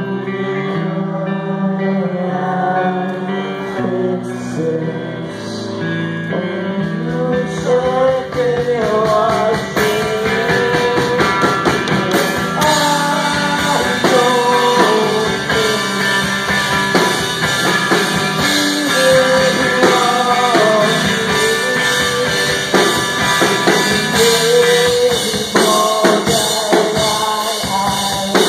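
Live rock band playing a song through a PA. Guitar chords ring on their own at first. The drum kit comes in after about seven seconds with cymbals, and a voice sings over the band.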